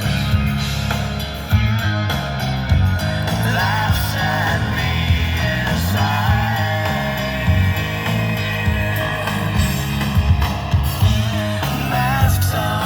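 Rock song with a singing voice and guitar playing through a Harman Kardon speaker system, with heavy bass from its bass knob turned up.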